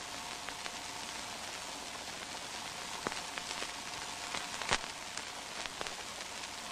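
Steady hiss and crackle of an old film soundtrack, with a few faint clicks, the loudest a little under five seconds in.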